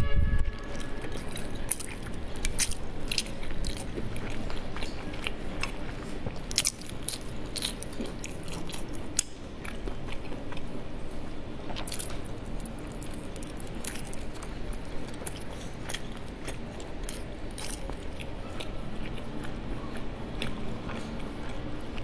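Close-up chewing and biting of sticky glutinous rice dumplings (zongzi), with many small wet mouth clicks and smacks throughout. A low thump sounds right at the start.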